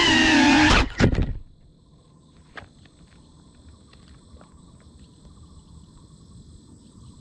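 FPV quadcopter's motors whine with a wavering pitch, then cut out less than a second in with a couple of knocks as the drone settles and disarms on the ground. Afterwards insects buzz with steady high tones, with a few faint clicks.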